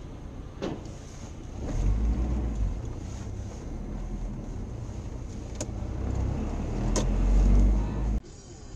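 Car driving noise heard from inside the car by a dashcam: steady engine and road noise, with a low rumble that swells twice and a few sharp clicks. It cuts off abruptly near the end.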